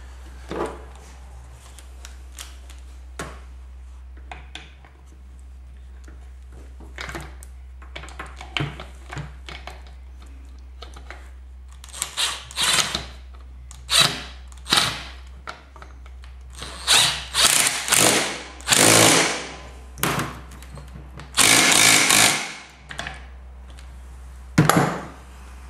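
Light clicks and knocks of parts being handled on a metal bench, then a cordless drill with a socket extension run in about six short bursts, screwing the base valve into the bottom of a KTM fork leg to seat the damper cartridge.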